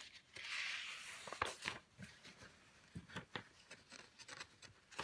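Large sheets of comic-art paper sliding against each other as pages are moved on a table: a soft slide about half a second in, then light taps and crinkles of paper being handled.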